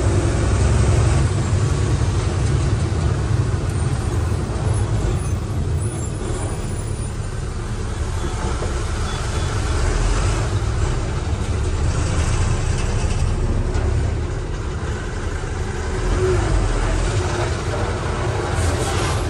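Truck's diesel engine running at low speed, a steady low rumble with road and cab noise heard from inside the cab, and a short hiss near the end.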